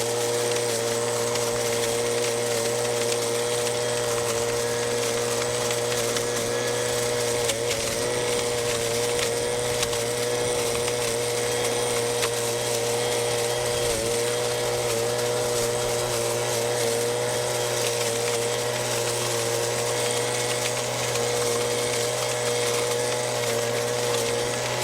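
Stihl SH 86 blower/vacuum-shredder with its 27.2 cc 2-MIX two-stroke engine running steadily at high speed, with a brief small dip in pitch about 7 seconds in and again about 14 seconds in.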